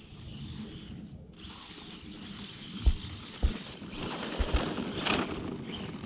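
Arrma Senton RC truck driving across snow: a steady electric-motor whine and tire noise, with a few dull thumps around the middle and a louder rush of noise near the end.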